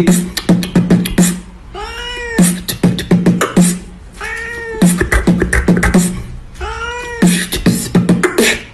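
A cat meows three times, each meow rising and falling in pitch. Each meow is followed by a quick beatbox-style run of clicks and thumps, making a call-and-answer rhythm of cat and beat.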